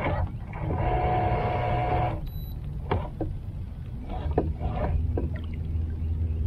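Electric trolling motor running with a steady whine for about a second and a half, which cuts off, followed by a lower hum as the boat is held in position; a few light clicks in between.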